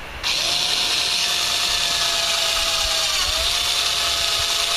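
Milwaukee cordless drill drilling into the swing set's metal tubing with a small bit. It starts about a quarter second in and runs steadily, its whine dipping briefly in pitch about three seconds in as the bit bites, and it is cutting well.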